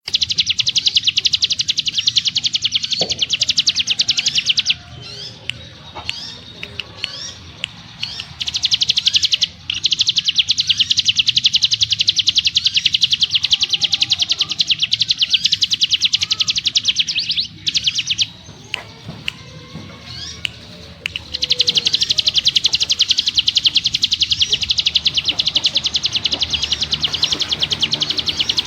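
Ciblek gunung (a prinia) singing: long, very fast, even trills, the "ngebrem" of bird keepers. There are three runs of trilling with short rising chirps in the pauses between them.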